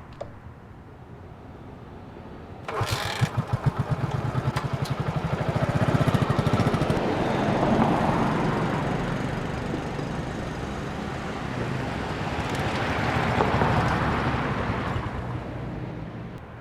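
A vehicle engine starts about three seconds in with a quick pulsing beat, then runs, swelling and easing, and fades out near the end.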